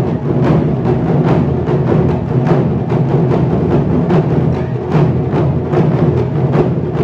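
A large ensemble of Japanese taiko drums, mainly barrel-bodied nagado-daiko struck with bachi sticks, playing together in a steady driving rhythm of a few deep strikes a second, with a sustained low ring between the hits.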